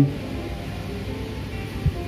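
Soft background music in a pause between spoken words, with a brief low thud near the end.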